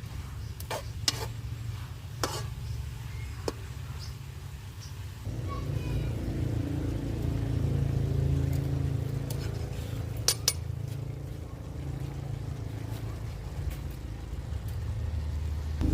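Kitchen utensils clinking against dishes a few times, over a steady low rumble.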